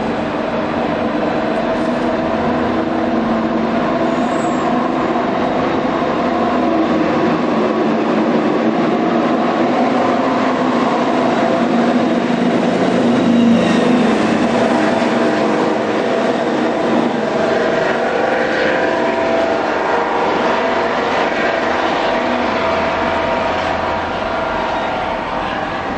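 Class 55 Deltic diesel locomotive D9009 running on its two Napier Deltic two-stroke engines as it approaches along the platform road. It is a loud, steady, multi-toned engine drone that swells about halfway through.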